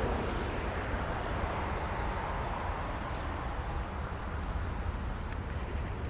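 Jet airliner's engines under takeoff thrust: a broad rushing noise that slowly fades as the aircraft draws away, over a steady low rumble.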